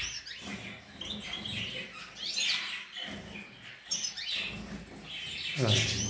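Caged European goldfinches and canaries chirping: a scatter of short, high calls.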